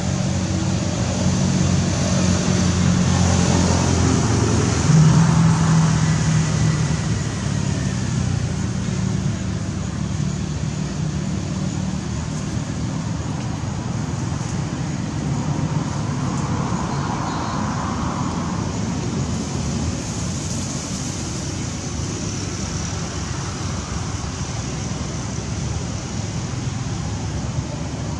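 A motor vehicle's engine running with road-traffic noise, loudest about five seconds in and fading over the first half, leaving a steady outdoor hiss.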